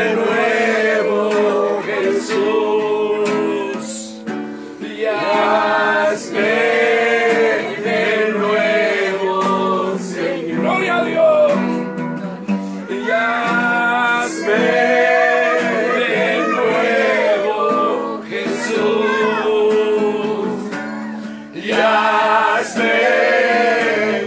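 Congregational singing of a slow Spanish worship chorus, led by a man's voice, with an acoustic guitar strumming along.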